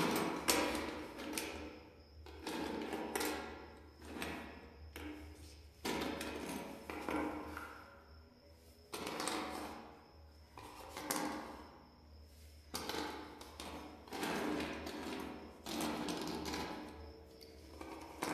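Plastic craft pieces handled and set down on a table by gloved hands: irregular clacks and rustles every second or two.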